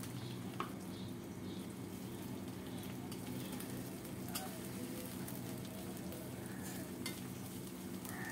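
Grated coconut frying in hot oil with a panch phoron tempering in an aluminium kadai, sizzling steadily as a metal spoon stirs it, with a few light clicks of the spoon against the pan.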